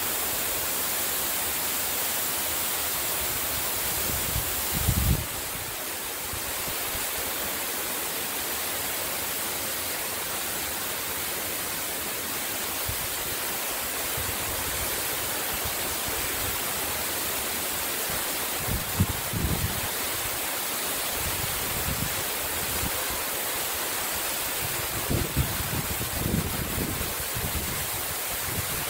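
Steady rush of a waterfall falling through its icy, partly frozen cascade into a pool. A few brief low bumps break in about five seconds in, near the middle and near the end.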